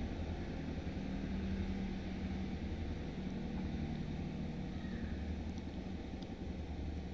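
A steady low background hum, with two faint brief clicks a little past the middle.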